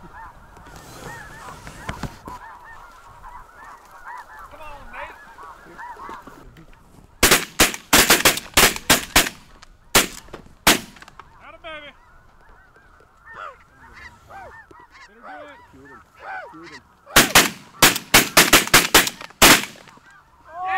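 A flock of snow geese calling overhead with many overlapping high yelps, broken twice by rapid volleys of shotgun fire, each about ten shots in two or three seconds, from several hunters shooting into the flock.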